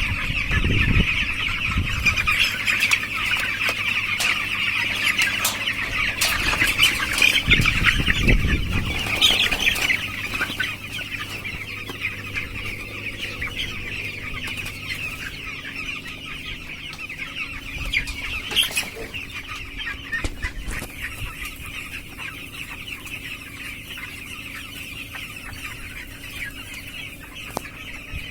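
A large flock of 15-day-old broiler chicks peeping together in a dense, continuous chorus. It is louder for the first ten seconds or so, then drops to a softer level, with a low rumble under it at first.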